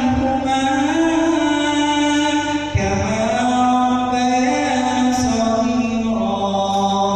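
A man chanting an Arabic prayer (du'a) in long, melodious held notes that slide and ornament between pitches, with a short breath about three seconds in.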